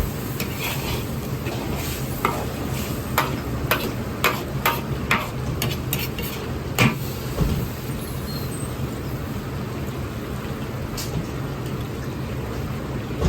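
Steady roar of a gas wok burner with food sizzling in the wok, and a metal ladle clanking against the wok about a dozen times in quick succession in the first half as the ingredients are stir-fried.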